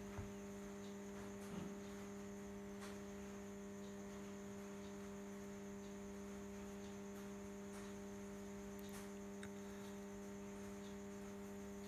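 Steady electrical hum, unchanging throughout, with a few faint clicks.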